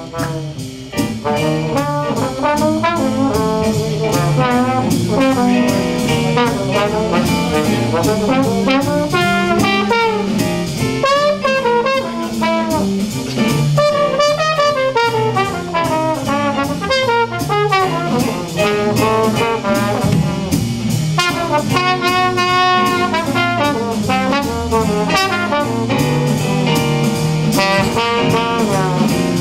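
Live big-band jazz: a trombone solo, its fast phrases bending and sliding in pitch, over a stepping bass line and steady cymbal time from the drums.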